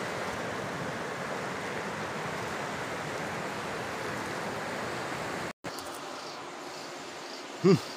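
Steady rush of flowing river water, which cuts off suddenly about five and a half seconds in. A quieter background of faint insect chirps follows, and a brief voice-like call comes near the end.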